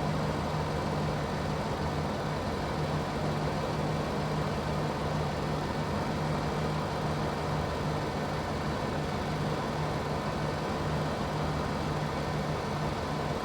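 Lincoln Navigator's 5.4-litre V8 running at a steady idle while air is bled from the cooling system after a heater hose repair.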